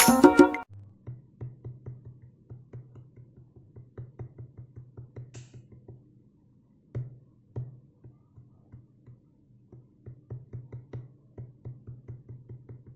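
A loud burst of music cuts off about half a second in. It gives way to a quiet, sparse electronic beat of short low drum hits, a few per second, with light clicks over them and a short pause midway.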